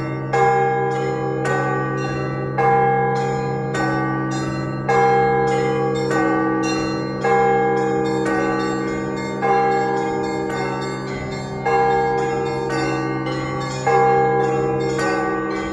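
Orthodox church bells rung together: an accented strike comes about every second, with quicker strokes of smaller bells between. The overlapping tones ring on continuously.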